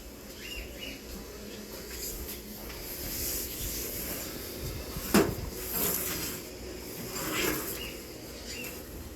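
Rustling and handling noise with one sharp knock about five seconds in.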